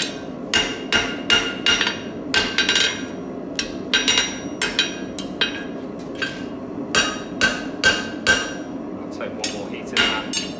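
Hand hammer striking a hot steel bar on the anvil as the bar is bent into a scroll, in runs of blows about three a second with short pauses between runs. Each blow rings briefly at a fixed pitch.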